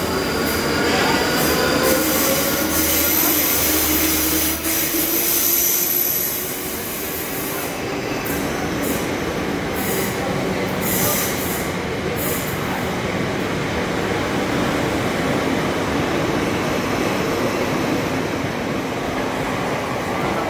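South Western Railway electric multiple-unit train running past close by: a steady rumble of wheels on rail, with motor tones gliding in pitch in the first few seconds and a run of sharp clicks about eight to twelve seconds in.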